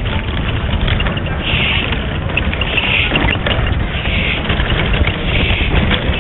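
Busy city street din: a steady low traffic rumble, with about five short high-pitched sounds spread roughly a second apart over it.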